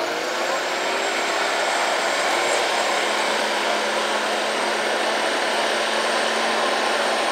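Diesel engine of a Jeep Wrangler Rubicon pulling steadily through slushy mud. Its pitch rises in the first second, then holds, over a steady rushing noise.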